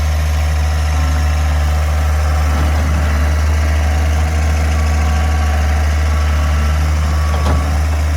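A 2004 Komatsu wheeled skid steer's diesel engine idling steadily, with a single short knock near the end.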